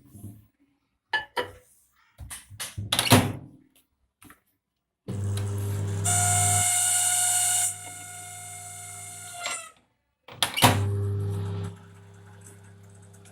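Clicks and thunks of the LG microwave oven being handled. Then the microwave runs with a loud steady hum and a higher whining tone, stops, and starts again. This is the noise fault that the repair puts down to a dry shaded-pole motor needing grease or oil.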